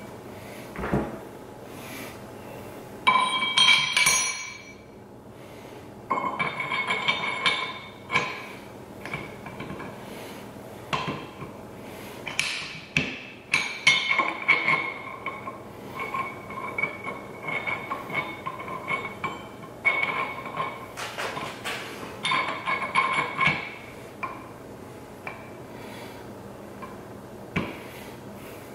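Metal transfer-case parts clinking and knocking together as they are fitted into the housing. The knocks come in clusters of quick taps, and many ring on briefly at the same high pitches.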